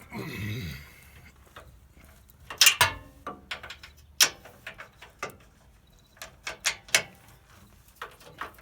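Socket wrench and 19 mm socket on a tight factory cam bolt of a Nissan Xterra's lower control arm, giving a brief strained rush of sound at the start. After that come irregular sharp metallic clicks as the tool is worked.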